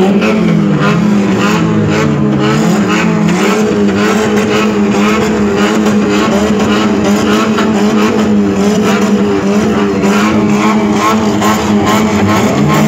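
Minivan engine held at high revs, its pitch steady with slight wavering and a rough crackle over it, as the van spins its front wheels in a burnout.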